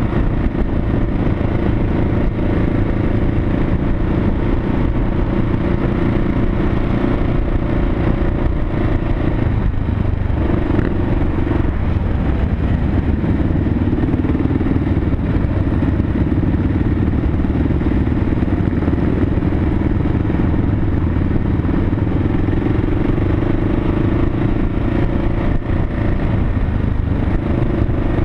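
Motorcycle engine running steadily at cruising speed, heard from a camera mounted on the moving bike. The engine note dips briefly about ten seconds in.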